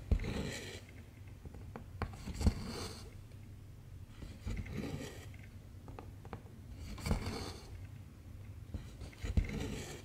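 Cross-stitch needle and embroidery thread being pulled through 11-count fabric: five short rasps about two seconds apart, one per stitch, several beginning with a sharp tick as the needle pokes through.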